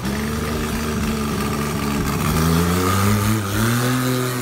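A motorboat engine running, its pitch climbing steadily from about halfway through as it speeds up.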